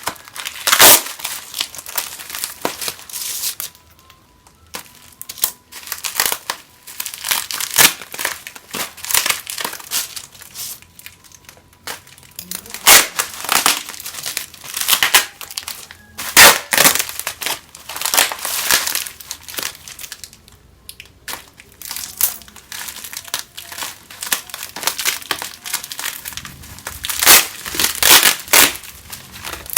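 Packaging being handled and crumpled during the unboxing of Lifebuoy soap: irregular crinkling crackles that come in clusters, with short quieter pauses between them.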